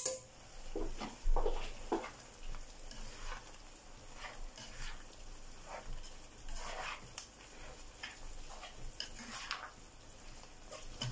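Plastic slotted turner and metal tongs tossing spaghetti and seafood in a nonstick frying pan: irregular scrapes and soft clacks against the pan, starting with one sharp clack, over food sizzling faintly in the pan.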